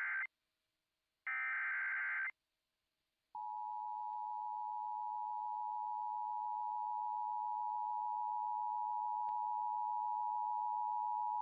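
NOAA Weather Radio alert signals: the end of one screeching SAME digital header burst and then a second one-second burst, followed after a short pause by the steady warning alarm tone, held for about eight seconds. Together they announce a new severe thunderstorm warning.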